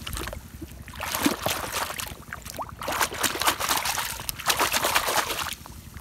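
Water splashing and sloshing as a plastic toy excavator is swished and scrubbed by hand in muddy water, in three or four spells with short pauses between them.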